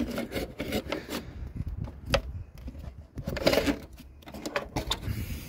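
Handling noise: irregular clicks, taps and rustles as plastic air-intake parts and hoses in a car engine bay are worked loose and the phone is moved. There is a sharp click about two seconds in and a busier patch of rattling a little later.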